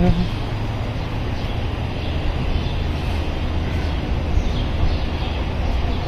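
Steady vehicle noise: a low rumble with an even road hiss.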